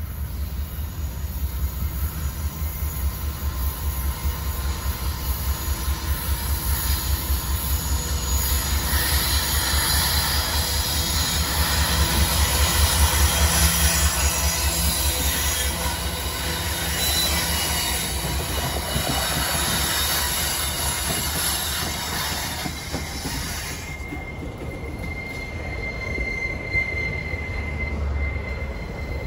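Freight train passing on a curve: GE AC44i diesel-electric locomotives rumble past, loudest about halfway through, followed by loaded grain hopper cars with rolling wheel noise. A steady high-pitched wheel squeal from the curve sets in over the last few seconds.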